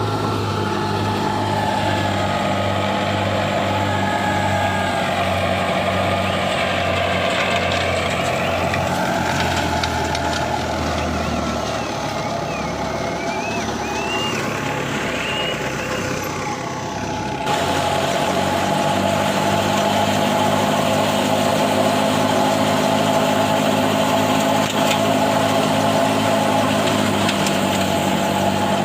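A large engine running steadily, its hum changing abruptly about two-thirds of the way through.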